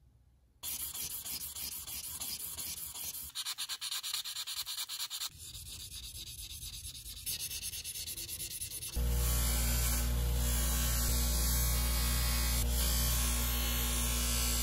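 Fine 1000-grit abrasive rubbed by hand in quick back-and-forth strokes over a small steel drill part, in several short stretches. About nine seconds in, the louder, steady running of a bench grinder motor with a buffing wheel takes over, with a low hum.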